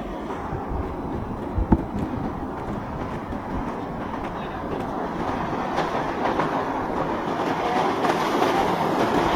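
Boats running through the inlet: a dense rumble of engines and water that grows louder toward the end, with one sharp knock nearly two seconds in.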